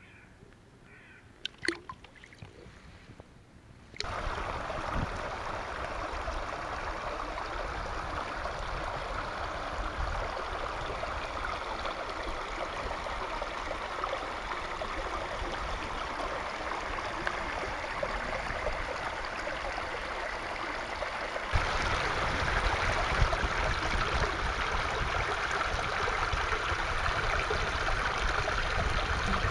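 A shallow stream running over stones and logs: a steady rush of water that starts suddenly a few seconds in and grows louder and brighter about two-thirds of the way through. Before it come a few quiet seconds with a couple of small clicks.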